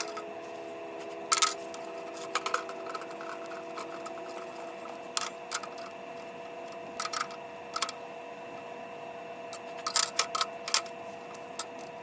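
A steady machine hum made of several constant tones, with scattered sharp clicks and light knocks through it, about a dozen in all, clustered near the start, in the middle and about ten seconds in.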